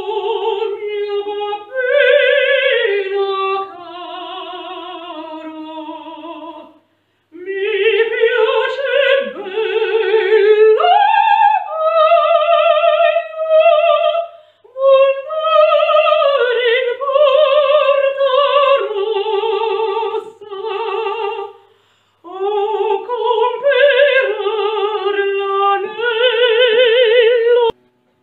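A woman's operatic voice singing unaccompanied with a wide vibrato, in four long phrases with short breaks between them.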